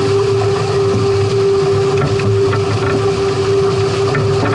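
A boat under way on the water: a steady hum holding one pitch, over a lower drone and a rushing of water and wind.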